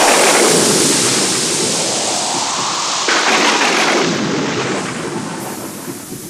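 Thunder-and-rain sound effect played over the stage loudspeakers: rolling thunder over a steady rain hiss, with a sudden louder clap about three seconds in, then fading.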